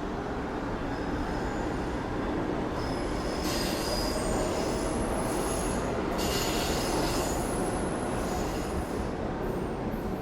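Subway train moving along the rails with a steady rumble, its wheels squealing in high thin tones, loudest about three to four seconds in and again around six to seven seconds in.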